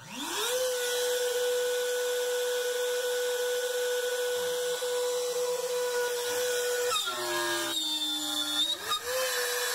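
Makita trim router on a benchtop CNC spinning up to a steady high whine. About seven seconds in, the pitch drops and rougher cutting noise comes in as the large roughing bit cuts into the wood and the motor slows under load. The whine climbs back up near the end.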